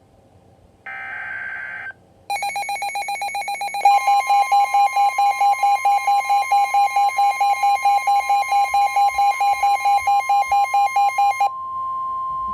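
Emergency Alert System tones for a severe thunderstorm warning: a one-second burst of buzzing digital header data, then a rapidly pulsing electronic alert tone that begins about two seconds in. A steady higher tone joins it, and near the end the pulsing stops while the steady tone carries on.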